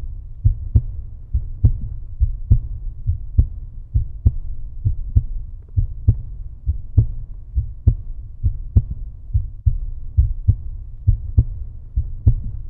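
Background music: a deep, low pulsing bass beat with about two or three thumps a second.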